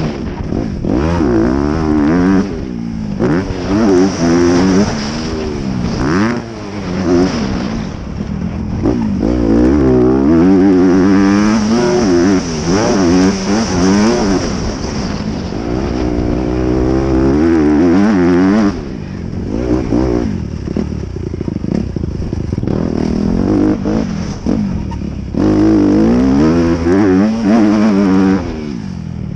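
Honda CRF250R motocross bike's single-cylinder four-stroke engine revving hard and repeatedly, its pitch climbing under throttle and through the gears, then dropping away when the throttle is closed, over and over.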